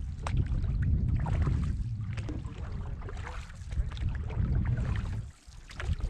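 Wind buffeting the microphone as a low, uneven rumble, with short splashes and knocks now and then from paddling the canoe. The rumble drops away briefly near the end.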